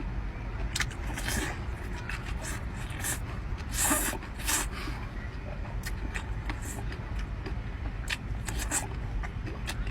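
Scattered clicks, crackles and scrapes of seafood shells being handled and pulled apart by hand, with a brief louder crackle about four seconds in, over a steady low rumble.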